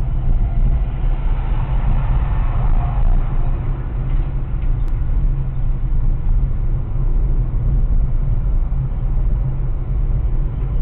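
Steady low rumble of a Ford Fiesta's engine and tyres heard from inside the cabin while it drives at about 35 km/h, picked up by the windscreen dashcam's microphone.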